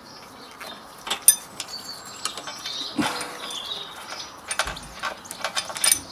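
A 14mm spanner clicking and clinking against the mounting bolts and body of a Honda CB400N's front brake caliper as the bolts are undone and the caliper is worked loose. The sound is a series of sharp metallic ticks, one loud one about a second in and a quick run of them near the end.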